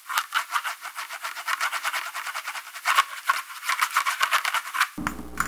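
Pen-on-paper scratching sound effect: quick scratchy strokes, many a second, accompanying handwritten lettering. Near the end it gives way to a brief low hum that cuts off suddenly.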